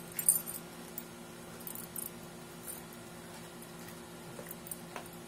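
Mastiff puppy licking and mouthing a whole raw tilapia: small wet clicks and smacks, with a light jingle of its metal collar tags. The loudest burst of clicks comes just after the start, with a few more scattered through.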